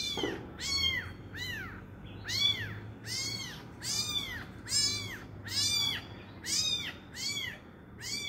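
Young kitten mewing over and over, short high-pitched cries that rise and fall, a little more than one a second: the distress calls of a kitten separated from its mother.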